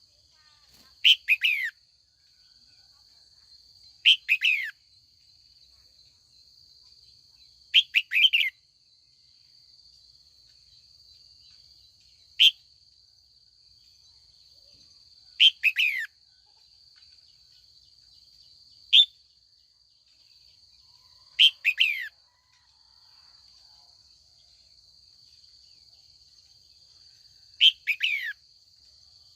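Female red-whiskered bulbul calling to draw in wild birds: short bright calls every three to four seconds, most a quick cluster of falling notes, a few a single brief chirp.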